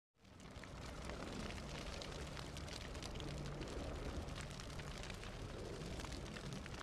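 Fire sound effect: steady noise of burning flames scattered with small crackles, fading in at the start.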